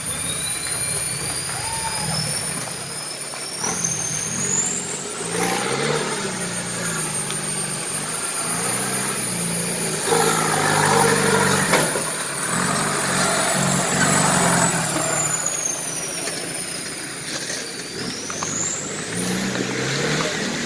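Off-road 4x4 engine running and revving, its pitch shifting as it works. Over it runs a high thin whine that rises and falls.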